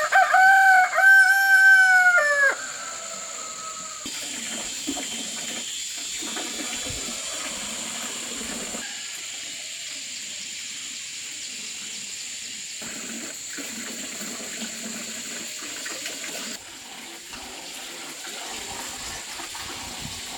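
A rooster crows once, loud and about two and a half seconds long, with its pitch falling away at the end. Steady hissing background noise with a faint high steady whine follows.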